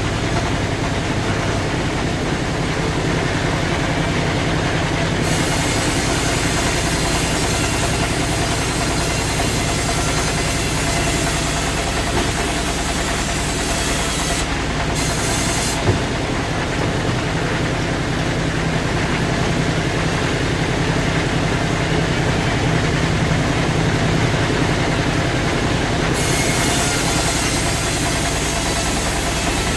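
Sawmill machinery running steadily with a low engine drone, with one sharp knock about halfway through.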